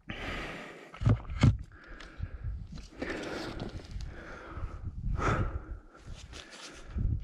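Close breathing and rustling at a helmet-mounted camera, with two sharp knocks about a second in; no engine is running.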